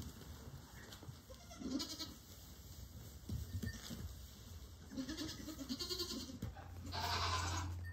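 Young goat kids bleating in short calls, once about two seconds in and again several times from about five to six seconds, with a louder, noisier sound near the end.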